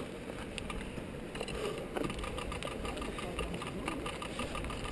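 Mountain bike freewheel hub ticking rapidly as the bike rolls along a gravel track without pedalling, starting about one and a half seconds in, over a low rumble of the tyres on gravel.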